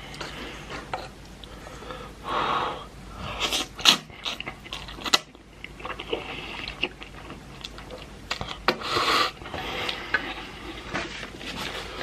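Eating from a bowl of spicy ramen noodles: a utensil clicking and scraping against the bowl, with several short bursts of breathing.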